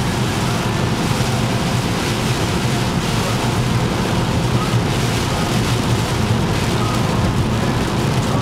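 Heavy rain falling on a moving car's windscreen and body, with steady engine and wet-road tyre noise heard from inside the cabin.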